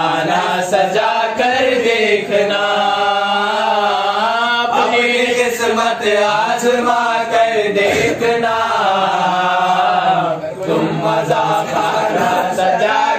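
A young man singing an Urdu devotional song unaccompanied into a microphone, in long, drawn-out chanted melodic lines, with a brief pause about ten and a half seconds in.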